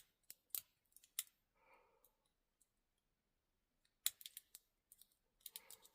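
Lock pick working the pins of a small 15 mm Yale padlock: light, scattered metal clicks, a few at first, then a pause, then quick clusters of clicks from about four seconds in.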